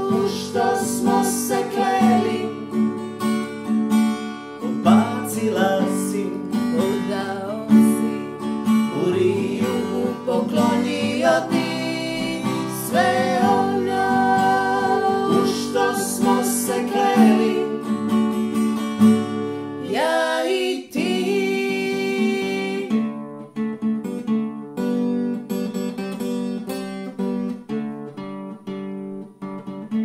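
Acoustic guitar strummed steadily, with singing over it in a melody without clear words; the voice drops out about two-thirds of the way through and the guitar carries on alone.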